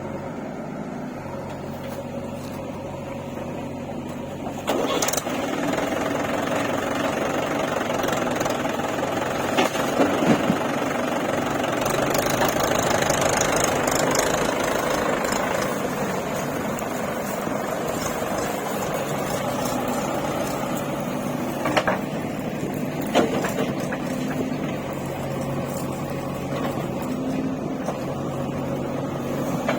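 Diesel engine of a backhoe loader or truck running steadily. It gets louder about five seconds in and swells further around the middle, with a few sharp knocks.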